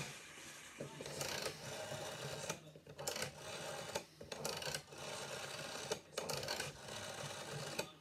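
GPO 746 rotary telephone dial being turned and whirring back again and again as a number is dialled, each digit a short mechanical run with brief pauses between digits.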